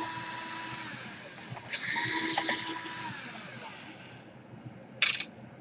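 Electric screwdriver whirring in short runs as laptop case screws are backed out. One run tails off in the first second and a half, another starts about 1.7 s in and fades, and a brief burst comes near the end.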